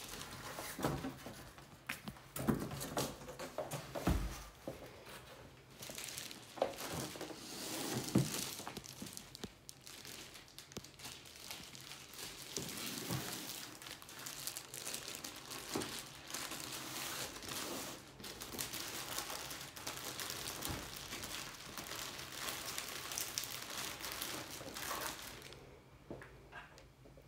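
Clear plastic wrap crinkling and rustling as a wrapped cardboard box is handled and slid out of a cardboard shipping carton, with a few dull thumps of cardboard. It dies down near the end.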